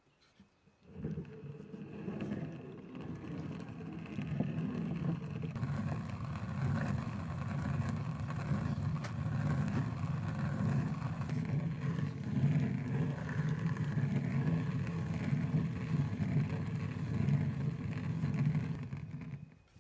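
Hand-turned stone quern grinding rice: the upper millstone turning on the lower stone with a steady, rough grinding, starting about a second in and stopping just before the end.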